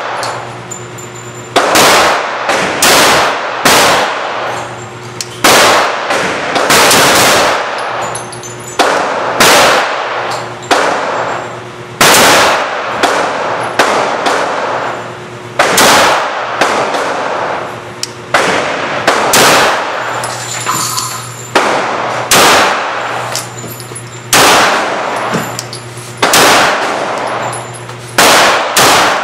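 Glock 17 Gen 4 9mm pistol firing about two dozen shots, mostly in quick groups of two or three about a second apart with short pauses between. Each shot is loud and rings out in the echo of an indoor range, over a steady low hum.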